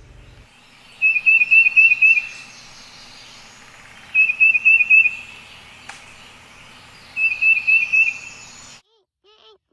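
Tufted titmouse singing: three whistled phrases of quickly repeated notes, each about a second and a half long, a few seconds apart.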